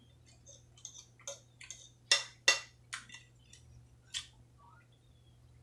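Close-up eating sounds: a scattering of short clicks and smacks while chewing, the loudest two about two seconds in, over a low steady hum.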